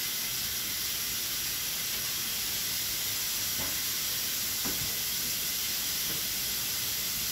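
A steady, even hiss that holds at one level throughout, with a few faint voices in the background.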